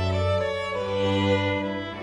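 Background music: slow string music with long held notes and a deep bass line.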